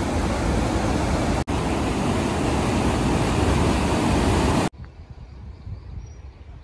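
Water gushing out of a dam outlet and down a concrete channel: a loud, steady rush of white water. It breaks off sharply about four and a half seconds in, leaving only a faint outdoor hiss.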